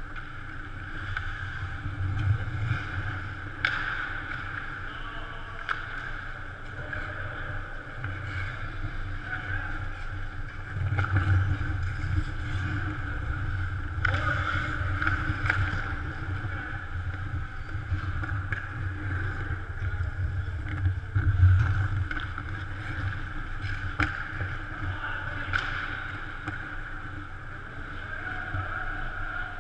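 Indoor ice rink during a pickup hockey game: a steady arena hum and low rumble, with sharp clacks of sticks and puck now and then and the scrape of skates on the ice.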